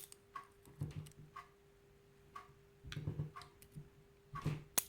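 Small, light clicks and taps of tweezers and tiny lock pins against an ASSA lock cylinder as the pins are picked out one by one, with a sharper click at the very start and another near the end. A faint steady hum runs underneath.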